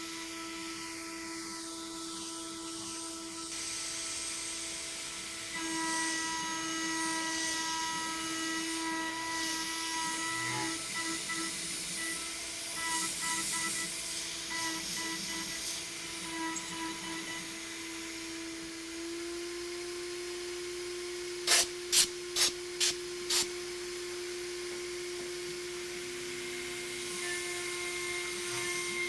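High-speed CNC router spindle (CNCDepot S30C) running and milling aluminum, a steady whine with uneven fluttering partway through as the cut changes. About two-thirds of the way in come five sharp clicks roughly half a second apart, the loudest sounds here.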